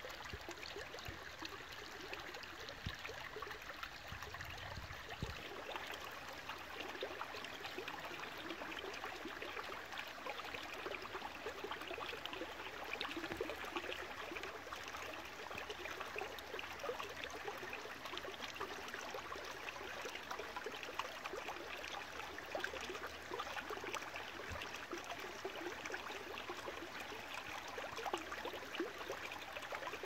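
Shallow stream trickling and babbling over rocks, a steady water sound with many small splashes.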